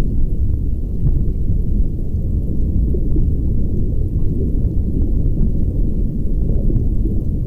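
Underwater ambience picked up through a camera's waterproof housing: a steady, muffled low rumble of moving water, with a few faint scattered ticks.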